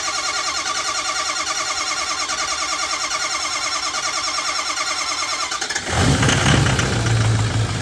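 6.0 Powerstroke V8 turbodiesel cranking on the starter in a steady rhythm without catching, a hard start after a full rebuild. About six seconds in it suddenly fires, flares up briefly and settles into a steady idle.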